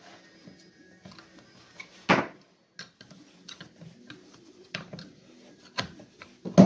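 A flat screwdriver prying and scraping among the small drive gear, armature shaft and plastic gearbox housing of an electric chainsaw: irregular clicks and scrapes of metal on metal and plastic, with a sharper knock about two seconds in and another at the very end.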